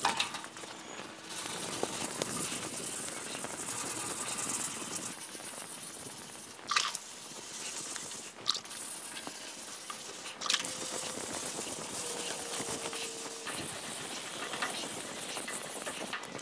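320-grit sandpaper on a hand sanding pad wet sanding a primed fender: a steady scratchy hiss of paper stroking across the wet primer. A few brief knocks stand out about seven, eight and a half and ten and a half seconds in.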